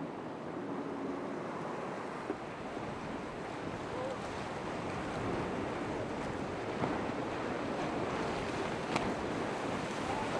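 Steady wash of breaking waves and surf, with wind buffeting the microphone. A few faint sharp clicks come about two, seven and nine seconds in.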